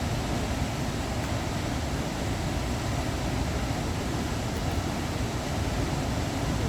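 Waterfall: a steady rush of falling water, heavy in the low end.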